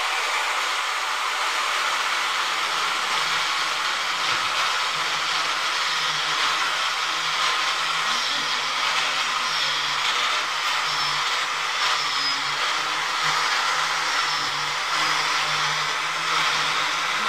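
Handheld electric power tool running steadily while pressed into a brick window sill, a continuous grinding whine with a low hum joining in about a third of the way through.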